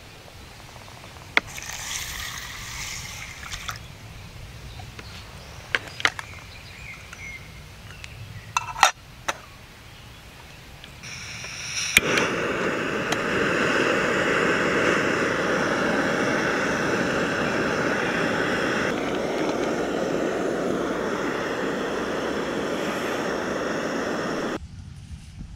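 A few metal clinks of a mess tin and lid being handled, then an Iwatani Junior Compact cartridge gas burner is turned on: gas starts to hiss, it lights with a click about halfway through, and the burner runs with a steady rushing hiss. The hiss cuts off abruptly near the end.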